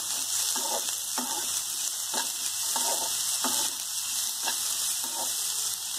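Diced onion and bell peppers sizzling in hot oil in a nonstick kadai, stirred with a metal spatula that scrapes across the pan in regular strokes about twice a second.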